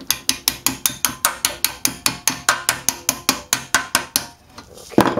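A hammer tapping rapidly and evenly on the metal inlet flange of a new VW Beetle muffler, about six strikes a second, expanding the flange so the exhaust sleeve will fit. The tapping stops about four seconds in, and one louder knock follows near the end.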